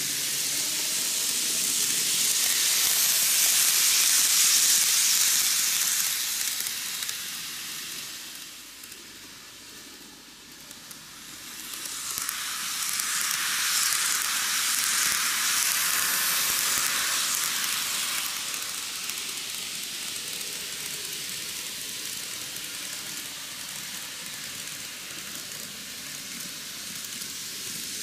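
N-gauge model trains running on superelevated curved track: a steady high whirring hiss of the wheels and motors on the rails. It grows louder twice as a train passes close, with a brief lull between.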